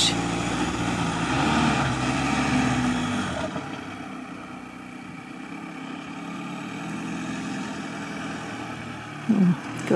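Camper van engine revving hard under load as it tries to pull free of wet grass, its pitch rising, with a rushing hiss over it. About three and a half seconds in it drops to a quieter, steady run.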